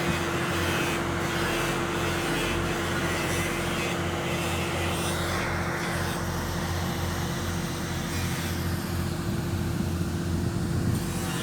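Pipeline welding equipment running: a steady machine hum with a constant tone, under a hiss that brightens and dulls now and then.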